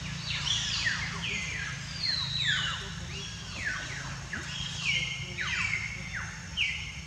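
Many overlapping high-pitched animal calls, each sweeping down in pitch and some ending in a short held note, repeating every half second or so, over a steady low hum.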